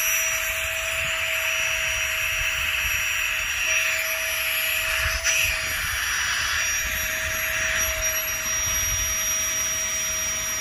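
Small electric air pump running steadily, blowing air into an inflatable sleeping mat: a constant whine over a rush of air.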